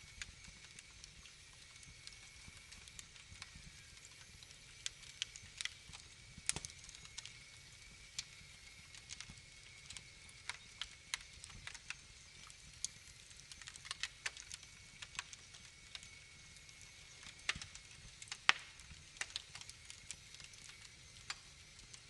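Wood fire crackling in a fireplace: irregular sharp pops and snaps over a faint steady hiss, with one louder pop about eighteen seconds in.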